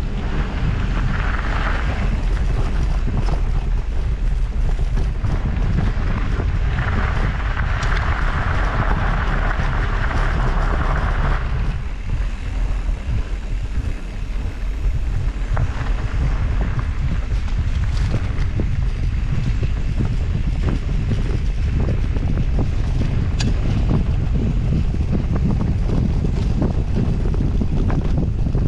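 Wind buffeting the microphone of a camera on a moving mountain bike, over a steady low rumble of tyres on a dirt singletrack, with small knocks and rattles from the trail. A hiss comes in for a few seconds from about seven seconds in.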